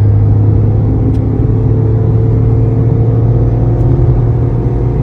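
Tata Tigor iCNG's 1.2-litre three-cylinder engine pulling under full-throttle acceleration, a loud, steady low drone.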